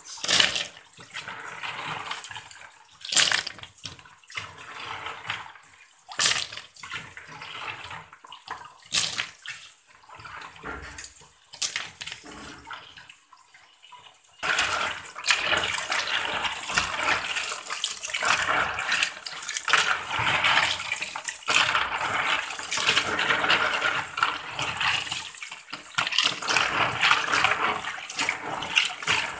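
Snails being washed in water: scattered splashes and sloshing at first, then a tap running steadily into a basin from about halfway through as hands rub the snails under it.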